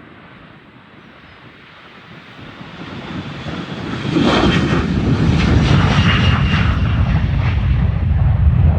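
Boeing 737-400's twin CFM56 turbofans at takeoff thrust. The sound grows steadily louder as the jet comes closer, then turns loud and low from about four seconds in, with a rough crackle on top.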